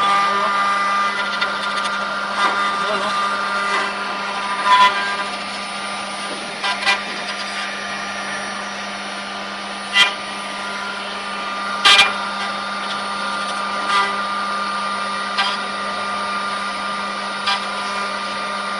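Multi-spindle CNC wood router running with a steady electric whine and hum, broken by several sharp knocks at irregular intervals.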